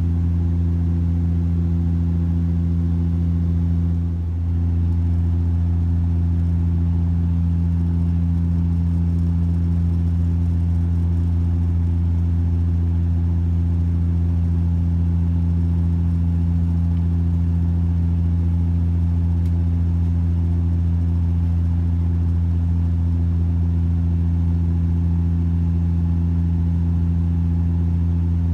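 Steady low drone of a Bombardier Dash 8 Q400's turboprop engines and propellers heard inside the passenger cabin, a loud hum made of several steady stacked tones. It dips slightly about four seconds in.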